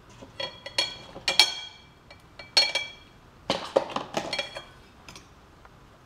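Metal cutlery clinking and scraping against a bowl as butter goes into couscous and is stirred in: a series of short ringing clinks in small clusters, fading out in the last second or so.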